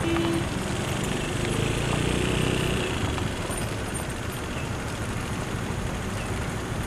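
Engines of a queue of vehicles, a bus among them, running steadily at low speed in a traffic jam on a dirt road.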